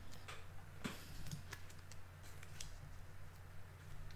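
Faint, scattered clicks and taps of board-game pieces and cards being handled and set down on a tabletop, over a low steady hum.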